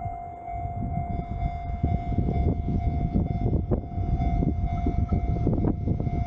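A train running past with a low rumble that grows louder about a second in, and a scatter of sharp clicks from its wheels. A steady high tone runs under it.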